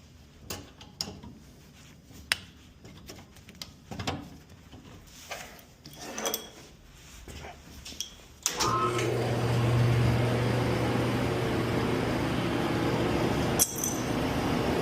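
A few scattered light clicks and knocks, then about eight and a half seconds in the boiler's burner comes on suddenly and runs steadily with a low hum, its ignition electrodes freshly re-gapped.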